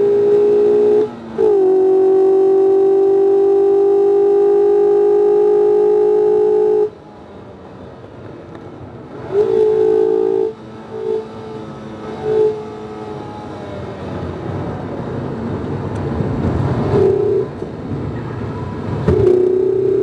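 Mazda MX-5 RF's 2.0-litre four-cylinder engine under load at steady high revs, with a brief dip about a second in. The throttle then lifts sharply and the engine drops away. A few short rev blips follow, then the engine builds again near the end.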